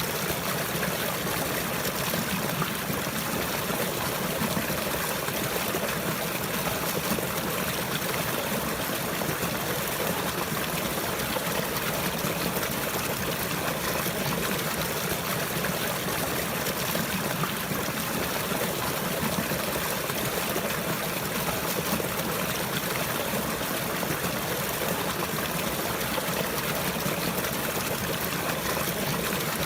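Steady running water, a stream trickling and flowing without pause.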